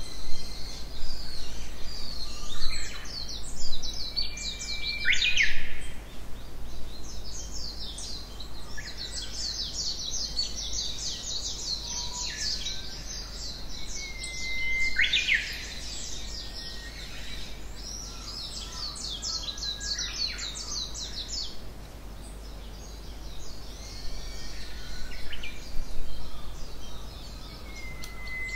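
Songbirds singing in a forest: dense, rapid high trills almost throughout, with a louder call about every ten seconds that begins as a held whistle and ends in a quick sweep.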